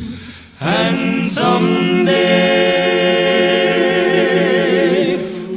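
An a cappella gospel quartet sings without accompaniment. After a brief breath gap about half a second in, the voices come in together and hold one long chord, the upper voices wavering with vibrato, until the phrase ends just before the close.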